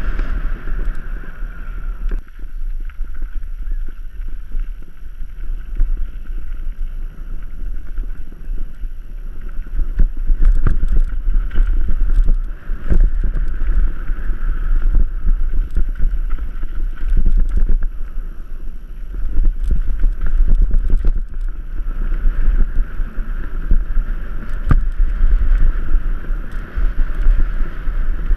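Mountain bike descending a dirt singletrack at speed, heard from a camera on the rider: wind buffeting the microphone, tyres on loose dirt, and a steady rattle of knocks from the bike over bumps, thickest in the middle stretch. A steady high whir fades early on and comes back near the end.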